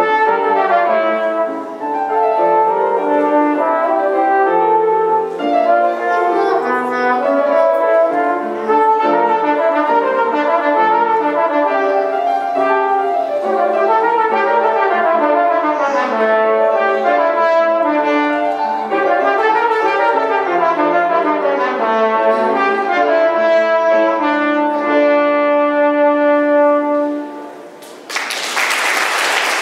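A live brass ensemble playing a classical piece in several parts. The music closes about 28 seconds in and the audience breaks into applause.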